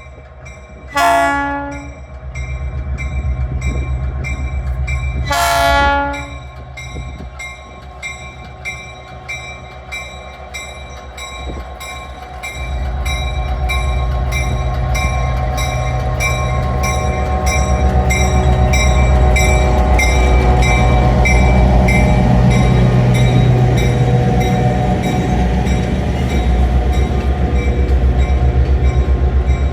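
Diesel locomotive horn sounding two short blasts, then the locomotive's diesel engine running louder and louder as the train pulls in. A bell rings steadily throughout.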